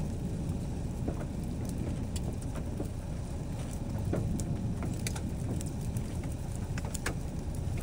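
Steady low wind rumble on the microphone, with scattered sharp ticks of raindrops landing nearby.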